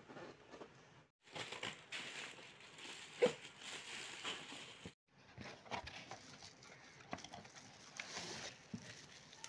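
Packaging handled during unboxing: a cardboard box being opened and bubble-wrapped glass jars lifted out, with crinkling and rustling and scattered knocks, the sharpest about three seconds in. The sound breaks off completely twice for a moment.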